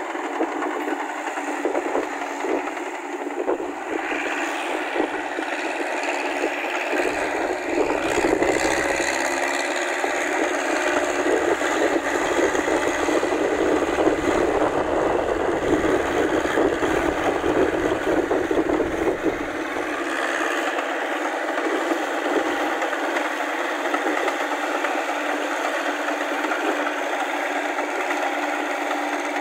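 Massey Ferguson tractor's diesel engine running under load with the clanking rattle of its steel half-tracks and tiller working through paddy mud; it grows louder and fuller through the middle of the stretch, then eases off.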